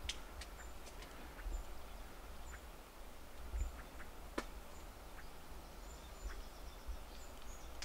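Faint outdoor ambience: a small bird's short, high chirps repeating about once a second, over a low wind rumble on the microphone. A few sharp clicks of the camera being handled come through, the loudest about four and a half seconds in.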